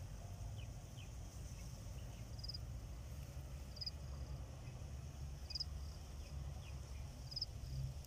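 Insects chirping faintly in the grass: short high chirps every second or two over a thin, steady high drone, with a low rumble of wind or handling on the microphone underneath.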